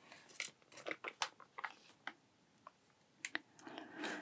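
Soft crinkles of tissue wrapping paper and light clicks as a Sony a6100 camera is lifted out and handled, with a short quiet pause after about two seconds and a couple of sharp clicks near the end.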